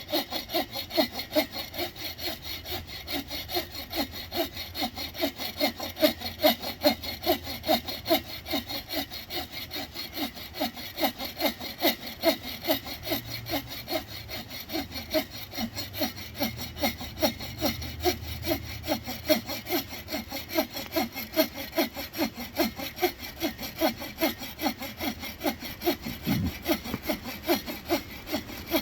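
Hand saw cutting through wood with steady back-and-forth strokes, about three a second.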